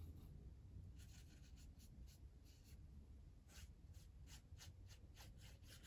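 Watercolour brush stroking across textured watercolour paper while blending wet paint. It makes a run of faint, short swishes that start about a second in and come several a second.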